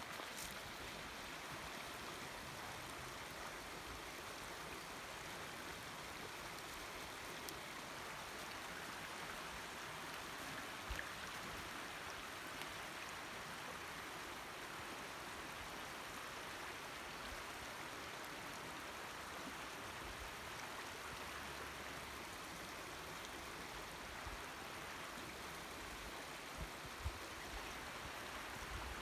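Shallow creek running over flat rocks, a steady even rush of water.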